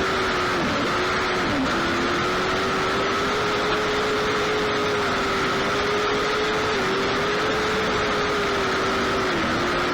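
Lightning sprint race car engine running hard, its single high engine note holding steady and dipping briefly several times, as when lifting off for the corners on a dirt oval.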